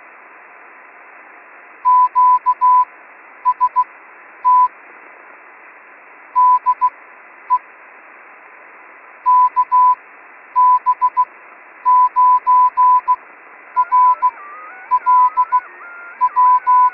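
Morse code: a single steady beep tone keyed in groups of short and long beeps, over the steady hiss of a radio receiver. From about fourteen seconds in, a second set of tones stepping up and down in pitch plays alongside it.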